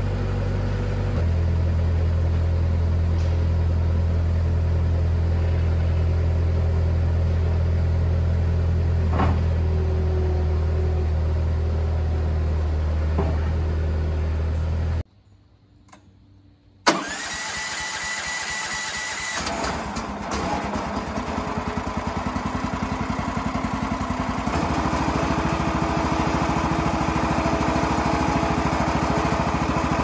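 Skid steer loader's engine running steadily. About halfway through, after a brief silence, the sawmill's 14 HP Kohler engine is electric-started: the starter whines for about two seconds, then the engine catches and runs, picking up speed a few seconds later.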